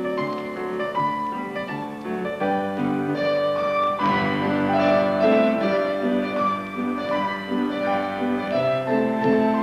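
Classical ballet music with the piano prominent, playing steadily through a sequence of held notes.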